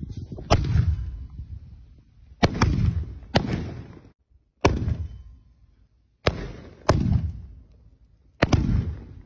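Double-kick (èrtījiǎo) firecrackers going off: about seven sharp bangs at irregular intervals of roughly one to two seconds, each trailing off in a short rumble.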